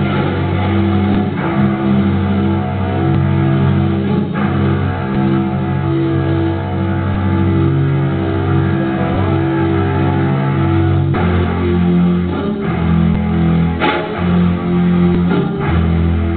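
Music led by guitar, with bass, playing steadily at full level.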